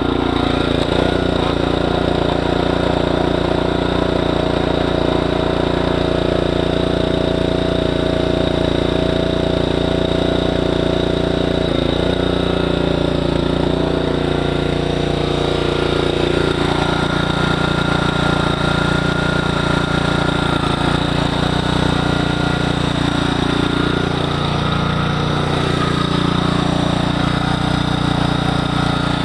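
Small carbureted gasoline engine running steadily, set up to power hydraulics; its note shifts slightly a few times partway through.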